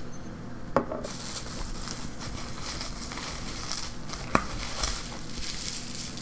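Plastic bubble wrap crinkling and rustling as hands handle wrapped paint bottles in a cardboard box, with two sharp clicks, one just before a second in and one past the middle.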